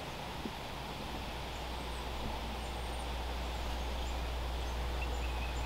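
Steady outdoor background noise: a low rumble under an even hiss, growing slightly louder, with a few faint, high bird chirps.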